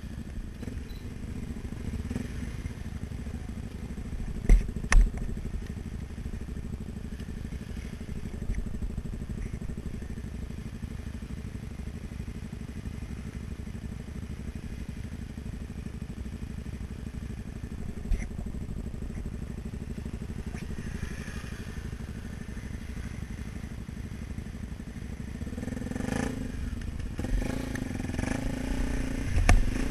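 Honda XR 250 Tornado dirt bike's single-cylinder four-stroke engine running at low revs while riding a rough trail, with sharp knocks as the bike jolts over the ground: two close together a few seconds in, one more midway. Near the end the engine revs up louder, with another knock.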